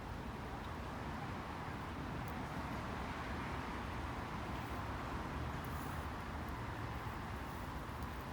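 Steady outdoor background noise: an even low rumble with a soft hiss above it, with no distinct events standing out.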